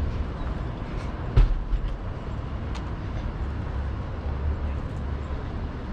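Steady low rumble of a vehicle, with a single sharp thump about a second and a half in.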